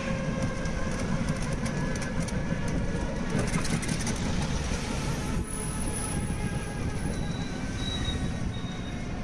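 Steady rumble of a moving vehicle and surrounding street traffic, with faint high-pitched whines partway through and near the end.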